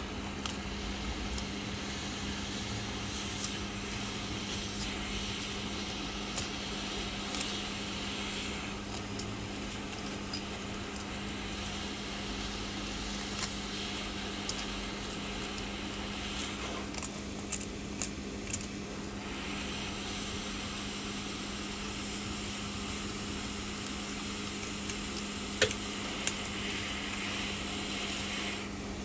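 Heat gun blowing, a steady rushing hiss over a low hum, easing off briefly twice, while the back glass of an iPhone is heated. Scattered sharp little clicks of the blade and glass chips sound now and then.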